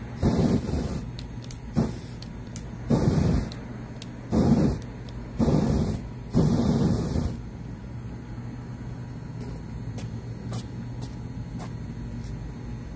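Aerosol spray can fired in short hissing bursts through a lighter flame, used as an improvised flamethrower: about six bursts in the first seven seconds, each half a second to a second long, one of them very brief.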